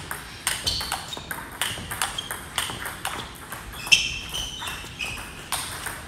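Table tennis rally: the ball clicking sharply off the rackets and bouncing on the table in a quick, steady rhythm as forehand loops are traded against returns, the loudest hit a little under four seconds in.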